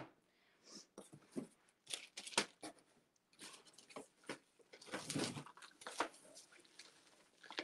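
Faint, scattered rustles and clicks of toys and packing material being handled in a cardboard shipping box, a little busier about five seconds in.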